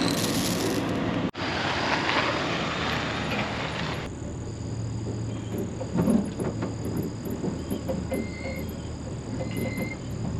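Engine of a large farm vehicle running steadily. A broad rumble fills the first few seconds and breaks off briefly about a second in, then settles into a quieter, steady low hum about four seconds in.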